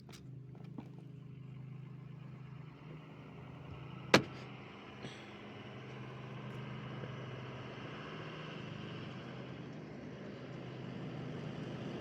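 A steady low mechanical hum, with one loud sharp click about four seconds in.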